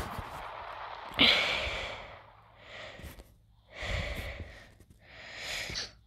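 Pitched-down sound track of a TV channel logo ident: a steady hiss, then four breathy whooshing bursts, the first and loudest about a second in.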